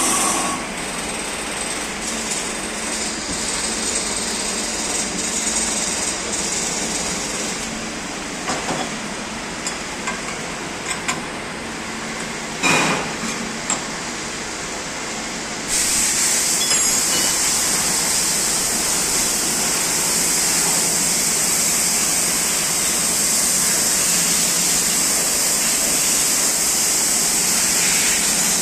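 CNC machine running a 1/2-inch BSP threading operation on a cast part: steady machine noise with a faint hum and scattered sharp clicks and knocks. About sixteen seconds in, a loud steady hiss starts suddenly and keeps going.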